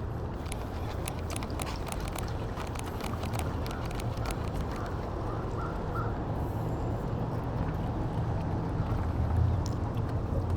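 Steady low outdoor rumble, with a run of quick light clicks over the first six seconds and a few faint high chirps partway through.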